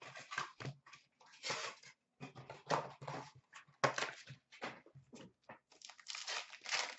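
Hockey card box and its foil card packs being handled and opened by hand: irregular crinkling and tearing rustles of wrapper and cardboard, in short uneven bursts.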